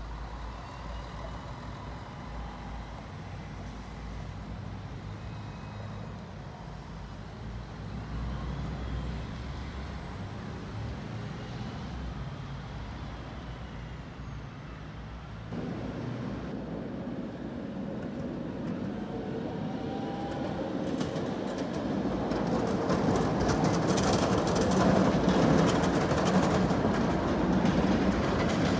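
Tram running along its track. The sound steps up suddenly about halfway through, then grows louder as the tram draws close, with rapid clicking of the wheels on the rails over the last several seconds.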